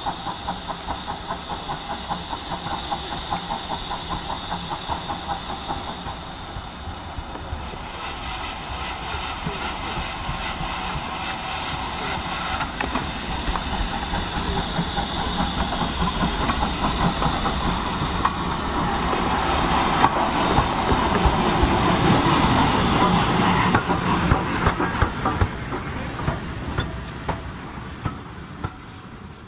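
GWR 2800-class 2-8-0 steam locomotive 2857 working a train, its exhaust beats chuffing in a rapid regular rhythm and steam hissing. The sound grows steadily louder as the engine approaches and passes, then fades away near the end.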